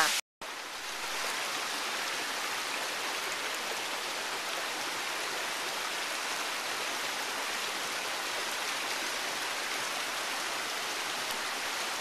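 Steady rush of a boulder-strewn mountain stream, the water running evenly with no change in level. The sound cuts out for a moment just after the start.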